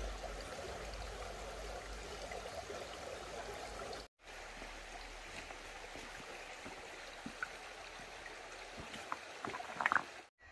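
Mountain stream water flowing over rocks, a steady low rushing noise that breaks off for a moment about four seconds in. A few short clicks come near the end.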